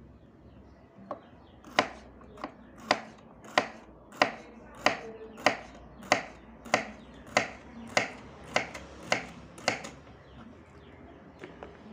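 A kitchen knife slicing bitter melon thin on a wooden cutting board: a steady run of about fourteen sharp knocks of the blade on the board, roughly two every second, starting about two seconds in and stopping about two seconds before the end.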